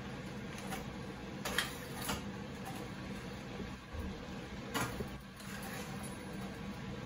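A metal spatula scraping and knocking against a frying pan as vegetables are stir-fried, with a few sharp clinks about one and a half, two and five seconds in, over a steady low hum.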